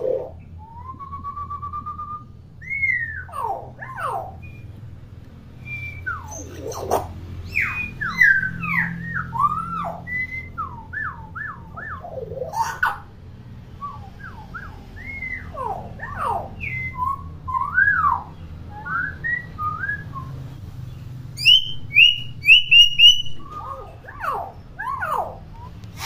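Common hill myna whistling and chattering: a varied string of rising and falling whistles, chirps and squawks, with a quick run of about six sharp high notes near the end.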